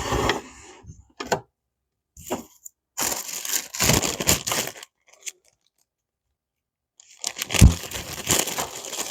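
Packaging being handled while parts are unpacked, with rustling, crinkling and tearing in several bursts separated by pauses.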